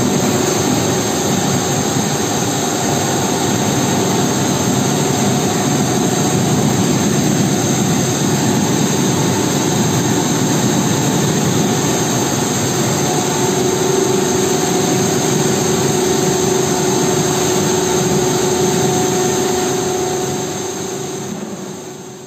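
Steady machinery drone and whir of a plastic pipe extrusion line, with a held mid-pitched hum and a high whine over a broad hiss; it fades out near the end.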